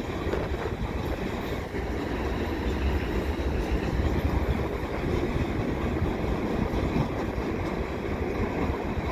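Freight cars of a mixed freight train (boxcars, tank cars, covered hopper and flatcars) rolling past on the rails: a steady noise of steel wheels on track.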